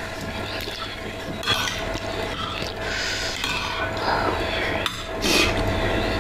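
Close-miked metal spoon and fork scraping and clinking against a ceramic plate while scooping up soupy instant noodles, with a few sharper clicks among the scraping.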